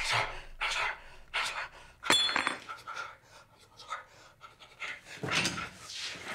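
Heavy, ragged panting and gasping breaths from a man being strangled and his attacker. About two seconds in, the metal chain around the neck gives a brief clink.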